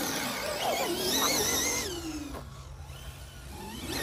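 Brushless electric motors of two RC cars, an Arrma Limitless and an Arrma Kraton 8S, whining at full throttle, the pitch wavering and then falling away as they pull off. The sound fades about halfway through, and a motor whine starts to rise again near the end.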